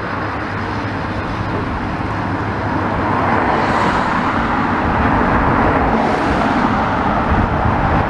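Road traffic: cars driving past on the street, a steady wash of engine and tyre noise that grows a little louder from about three seconds in as a car passes close.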